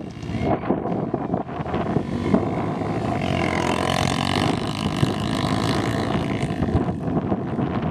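Honda XR250 Tornado's single-cylinder four-stroke engine running under throttle as the trail bike rides on beach sand.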